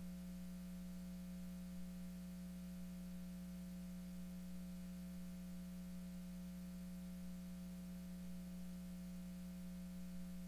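Steady low electrical hum from the sound system, unchanging, with a few fainter higher tones above it and light hiss.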